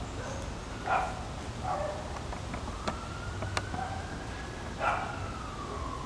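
Emergency-vehicle siren wailing, slowly rising in pitch for a couple of seconds, then falling near the end. A few short sharp sounds sit over it, the loudest about a second in and just before the end.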